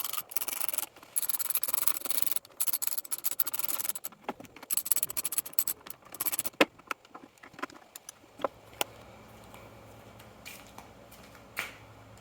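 Scraping, rubbing and rattling of trimmer parts and tools being handled during reassembly, with a few sharp clicks. From about eight seconds in, only a faint steady low hum remains.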